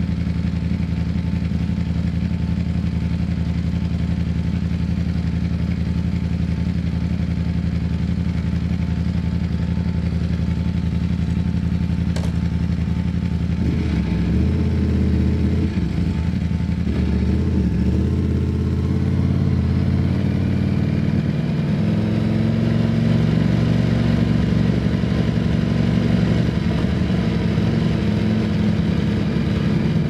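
Ducati Streetfighter V4S's V4 engine running at low revs. It runs steadily for the first dozen seconds, then about 13 seconds in the revs change and waver up and down before settling again. A single short click comes about 12 seconds in.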